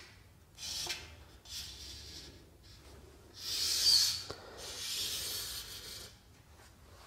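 Rasping scrapes of a nut and fittings being slid by hand along the slot of an aluminium frame rail, in several separate strokes, the loudest about four seconds in.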